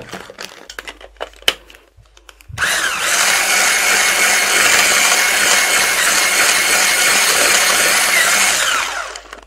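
Electric hand blender with a whisk attachment whipping thick waffle batter in a plastic bowl. It starts about two and a half seconds in with a rising whine, runs steadily for about six seconds, then winds down and stops near the end. Before it starts, a few light taps and clicks against the bowl.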